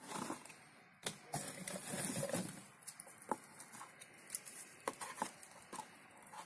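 Dry bark pieces rustling and crackling as they are handled and pressed onto a plastic flowerpot, with scattered light clicks and taps. The rustling is densest in the first two and a half seconds.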